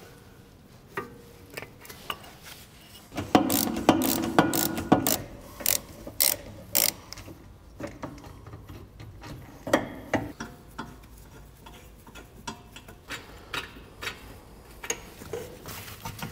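Ratchet wrench clicking on a socket as the rear wheel hub's retaining bolts are undone, with clinks of tool on metal. The clicks come in a dense run a few seconds in, then more scattered.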